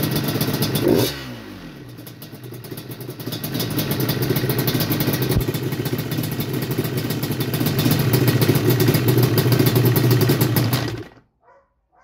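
Yamaha Banshee 350's twin-cylinder two-stroke engine running with its flywheel cover off: revs fall about a second in, pick up again a couple of seconds later and hold steady until it cuts off near the end. A fast, even rattle runs through it. The owner first took this for a loose flywheel and now suspects play in the clutch basket, since it goes away when the clutch is pulled.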